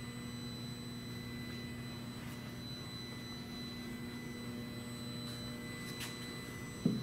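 Steady electrical mains hum with faint high steady tones above it, and a short low thump just before the end.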